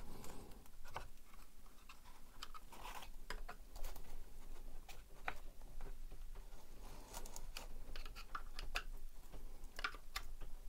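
Small, irregular clicks and scrapes of a flat-blade screwdriver prying at the latches of a Webasto Thermo Top V heater's old black plastic cover.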